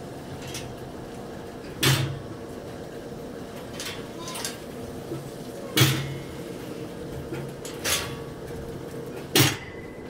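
Four sharp knocks or bangs at uneven gaps of two to four seconds, over a steady machine hum.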